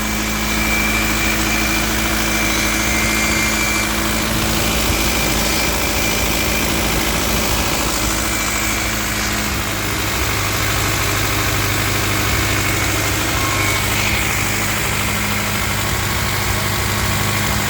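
BMW E36 318's M43 inline-four engine running with an abnormal noise from the engine, which the owner cannot place as lifter tick or rod knock; the noise appears from about 1500 rpm and grows louder as the revs rise. The engine's low note changes about ten seconds in.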